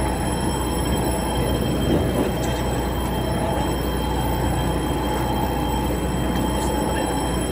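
Steady mechanical drone of a fishing boat's engine running, a low rumble with several steady high whines over it.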